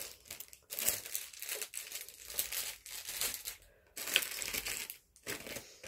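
Packaging rustling and crinkling in irregular bursts as items are handled, with a short pause near the end.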